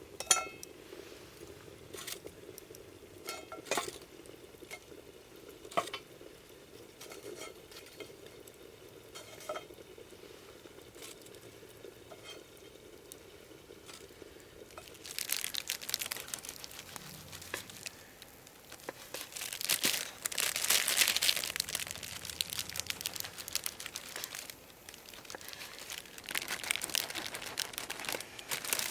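Camp cooking sounds: scattered clinks and taps of cookware and utensils, then, from about halfway through, a louder stretch of crackling and rustling.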